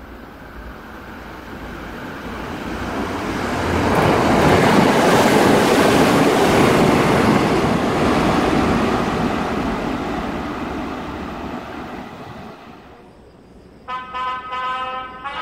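Electric multiple-unit commuter train passing on a nearby track: the rumble of wheels on rails swells over a few seconds, holds, and fades away. Near the end, a run of pitched tones starts abruptly.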